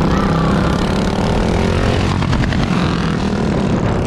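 Motorcycle engine running steadily while riding along a road, with wind rushing over the microphone.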